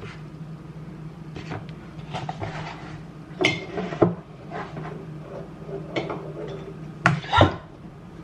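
Household items being handled and set down on hard surfaces: scattered light clicks and knocks, with louder clatters about three and a half, four and seven seconds in, over a steady low hum.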